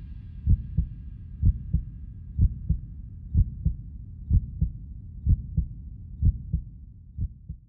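Heartbeat sound in the film's soundtrack: paired low lub-dub thumps about once a second over a low rumble, fading out near the end.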